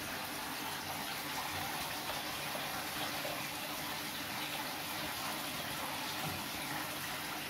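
Small decorative frog fountain, its stream of water splashing steadily into the basin below.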